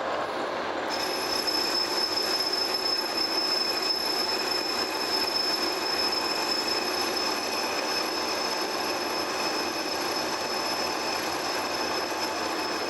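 Metal lathe running while a single-point tool takes a light 5-thou cut on the crown of a cast iron Durabar flat belt pulley. About a second in, a steady high-pitched squeal from the cut joins the spindle noise and holds to the end.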